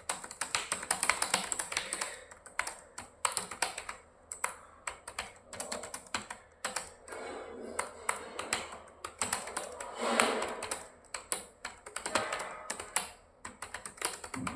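Fast touch-typing on a computer keyboard: a rapid, irregular run of key clicks, thinning briefly about halfway.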